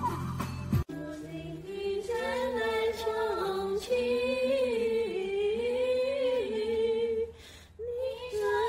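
A girl singing karaoke into a microphone over backing music from a speaker, cut off abruptly just under a second in. Then a single high voice sings unaccompanied, a long wavering melody with one short pause near the end.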